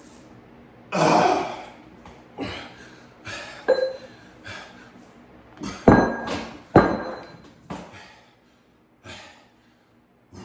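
A man breathing hard with heavy exhales after an exhausting set of exercise. Two sharp thuds come about a second apart near the middle, and a short metallic clink a little before them.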